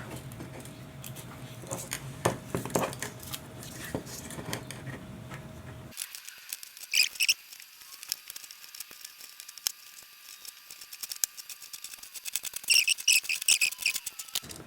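Scattered light clicks and small rattles of 22-gauge wire being wound by hand onto a coil, with brighter flurries of clicking about seven seconds in and again near the end.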